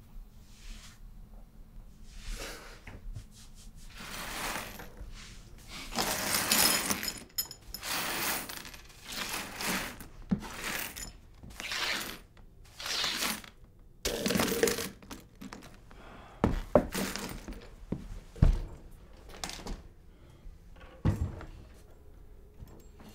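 Broom sweeping a floor in a series of swishing strokes about a second apart, followed by a few sharp knocks in the second half.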